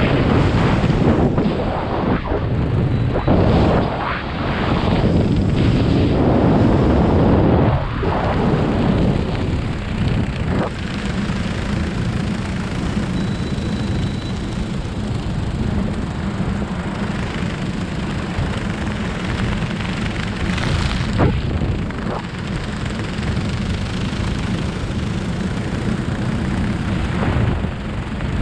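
Airflow buffeting a helmet camera's microphone during a parachute canopy descent: a heavy, gusty rumble with a few sharp thumps through the first several seconds, settling into a steadier, quieter rush.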